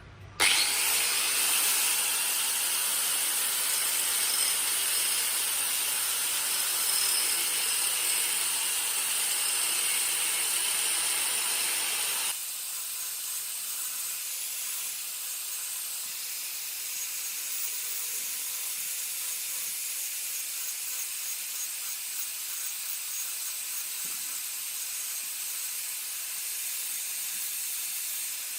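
Handheld electric power tool running steadily, a loud hiss with a high whine. About twelve seconds in the whine stops and the level drops to a quieter, steady hiss.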